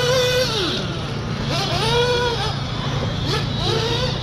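REDS 521 nitro engine in an Agama A319P 1/8-scale buggy, revving high on the throttle and dropping off. Its whine falls about half a second in, climbs again around a second and a half, drops near two and a half seconds and rises again, with a steady low hum beneath.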